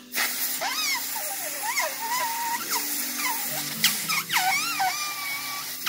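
Air whistling out of the weep hole by an old compressor's diaphragm: a wavering squeal that slides up and down in pitch, almost like mumbled talk. It sits over the steady low hum of the running compressor.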